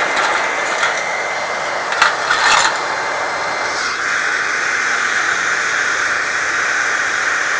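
Homemade foundry furnace burning under a forced-air blast: a steady rushing noise of blown air and fire, with a few sharp crackles a couple of seconds in and a change in its tone about four seconds in.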